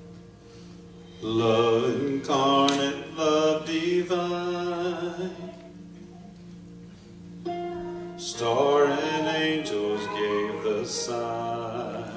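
Amplified singing over a soft instrumental chord that is held throughout: two long sung phrases with held notes, split by a short gap of accompaniment alone around six seconds in.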